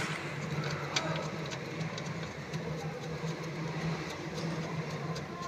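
A steady low machine hum, with a few light clicks and taps from hands working at the seat's mounting rail.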